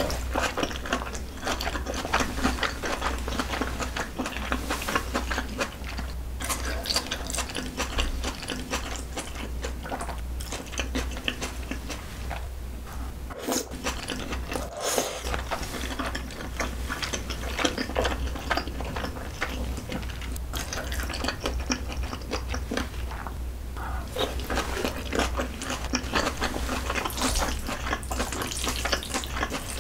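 Close-miked wet chewing and slurping of saucy noodles (ramen and glass noodles in a thick, spicy rose-sauce braised chicken), a dense run of small wet smacks and clicks over a steady low hum.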